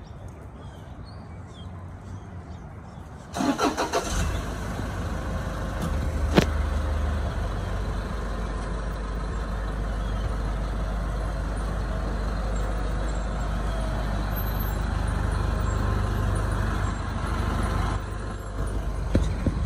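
An old cab-over box truck's engine cranks briefly about three seconds in, catches at once and settles into a steady idle. A single sharp knock comes a couple of seconds after it starts, and a few lighter knocks near the end.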